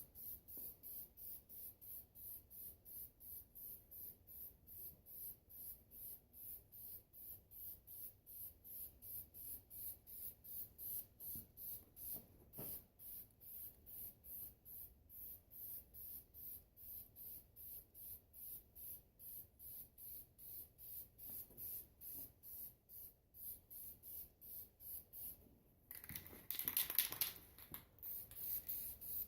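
Faint, steady high-pitched insect chirping, about three chirps a second, with a brief louder rustle near the end.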